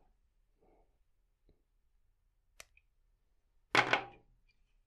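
Handling noise from a tennis racquet stringing machine's clamps and string: a faint rustle, then a sharp click, and about a second later a louder clack that dies away quickly.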